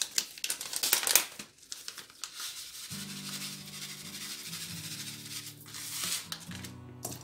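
Crinkling and rustling in the first second or so, then soft background music with held low chords from about three seconds in. Under the music is a faint hiss of sesame seeds being shaken from a paper packet onto the chicken.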